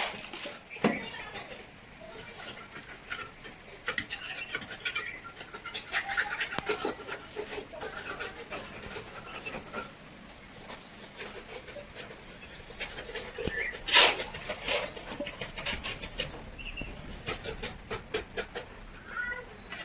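Scattered clicks, knocks and scrapes of work on a building site, with one sharp knock about fourteen seconds in and a quick run of clicks near the end.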